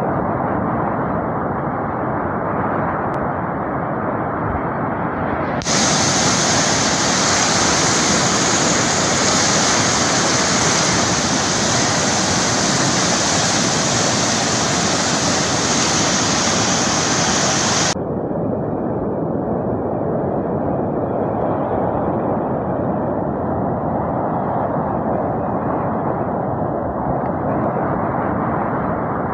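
Muddy flash-flood water rushing steadily, a dense hiss with no let-up. For a stretch in the middle, from about six seconds in to about eighteen, it turns brighter and a little louder, then drops back abruptly.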